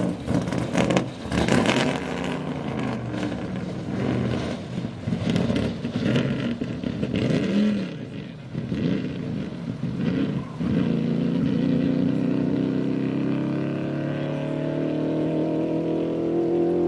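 Racing engine revved in short, irregular blips with sharp crackles for the first ten seconds or so. It then settles into a steady run whose pitch climbs slowly, like a vehicle pulling away under acceleration.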